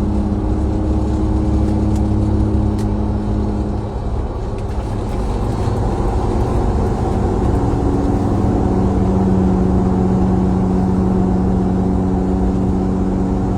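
Steady low rumble and hum of a running motor vehicle, the hum's pitch shifting a little about four seconds in and again later.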